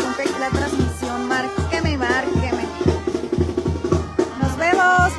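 Sinaloan banda playing live. Low bass notes come on a steady beat, about two a second, with drums, while the brass carries a melody above.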